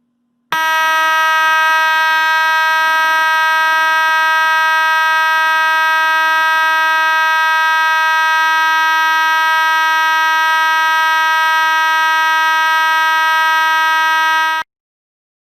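Simplex 2903-9101 fire alarm horn (with 2901-9806) sounding one steady, continuous tone rich in overtones. It starts about half a second in and cuts off abruptly just before the end.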